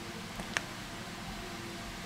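Steady background hiss with one short, sharp click about half a second in: small handling noise as glue is run along a phone's frame from a tube of adhesive.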